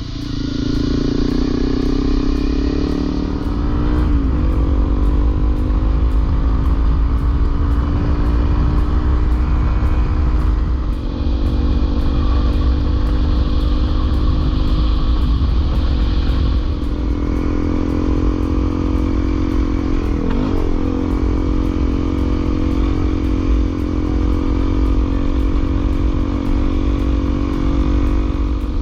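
Honda CRF250L single-cylinder dirt bike running under way on a trail, its engine note steady with brief dips and changes in pitch about four, fifteen and twenty seconds in.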